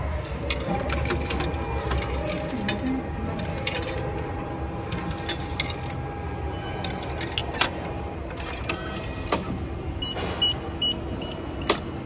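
Subway ticket vending machine at work: scattered clicks and mechanical clatter as it takes the money and issues a printed ticket, with three short high beeps about ten seconds in and a sharp click near the end, over a steady station hum.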